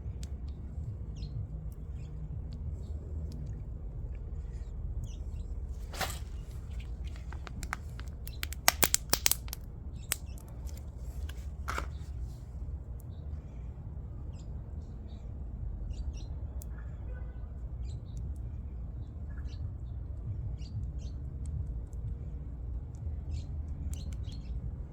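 CV joint grease being worked by hand into a UTV axle's constant-velocity joint: soft squelching with many small squeaks and pops as trapped air is pushed out of the grease, over a steady low hum. A few sharp clicks come in a cluster partway through.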